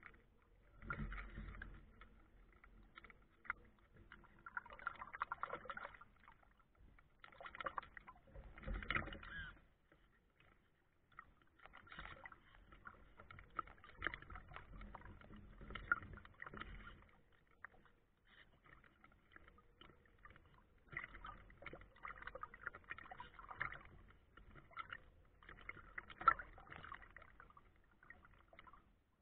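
Water splashing and sloshing against the hull of a small radio-controlled sailboat as it sails through choppy water, heard close up from on board in irregular surges a second or two long.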